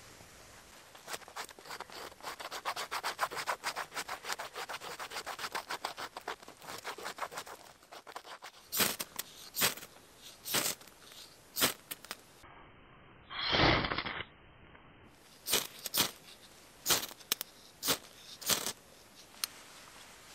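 Knife blade scraping birch bark, first in a fast run of short strokes and then in slower single strokes about a second apart, with one longer, louder rush in the middle. Near the end a ferrocerium rod is struck several times, sending sparks onto the bark shavings, which begin to glow.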